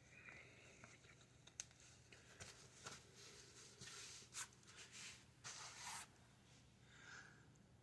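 Faint rustling of cloth and a few soft clicks as baseball caps are handled and put on, with most of the rustling in the middle of the stretch.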